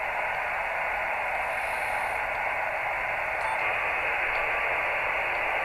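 Steady static hiss from an amateur radio receiver's speaker, narrow like a radio passband, with no clear beacon tone in it. A faint mechanical whir, likely the telescope mount's motor moving the antenna, shows about 1.5 to 2 seconds in.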